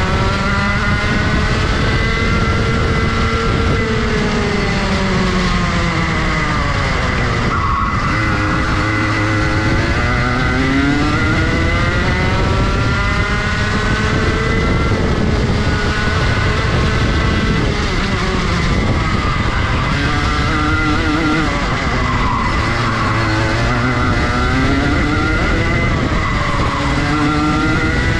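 Junior Rotax Max two-stroke kart engine running at racing speed. Its revs climb and fall again and again, with a sharp drop and quick recovery about eight seconds in.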